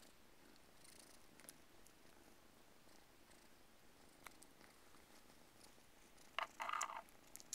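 Siamese kittens purring faintly while they suckle on a plush toy, with scattered soft clicks. A brief, louder squeak near the end.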